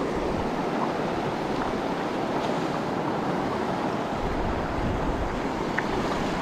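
Steady rush of a fast-flowing river over a shallow stony bed, with wind buffeting the microphone.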